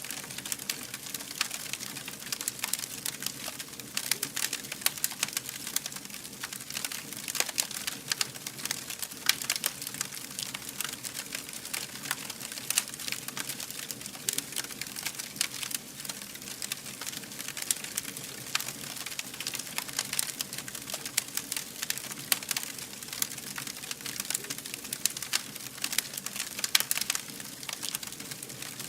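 A fire burning steadily, with a constant dense crackle of many small, irregular pops over a soft hiss.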